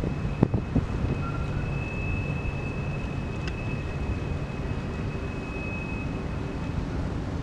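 Wind buffeting the microphone over a steady low rumble, with a thin, steady high-pitched whine in the background that stops near the end.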